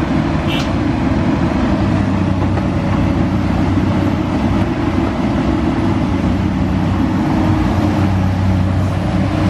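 Komatsu PC200 hydraulic excavator's six-cylinder diesel running steadily under working load as it dumps a bucket of soil into a dump truck and swings back, its engine note shifting slightly with the hydraulic load.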